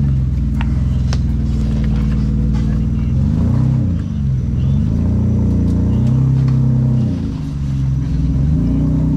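An off-road 4x4's engine working hard, its pitch rising and falling several times as it revs up and eases off, with a couple of sharp clicks in the first second or so.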